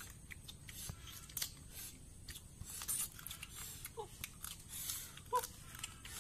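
Faint, scattered crunching and cracking of boiled crab shells being eaten by hand, with small rustles of the banana leaf they lie on. A short animal call sounds twice in the background, about four and five and a half seconds in.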